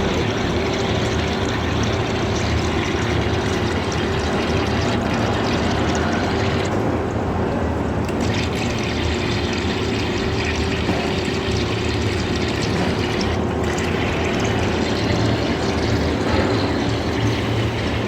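CNC machine running steadily while cutting notches into a steel roll for TMT bars: a constant hum with a steady tone over a dense hiss, the hiss thinning briefly twice.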